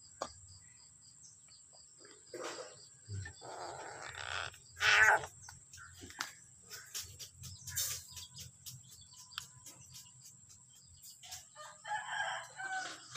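Birds calling in several separate bursts, the loudest about five seconds in and a run of quick calls near the end.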